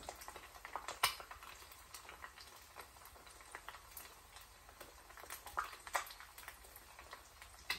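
Eggs frying on low heat in bacon fat under a lid: a faint, irregular crackle of small fat pops, with a sharper pop about a second in and a couple more near six seconds.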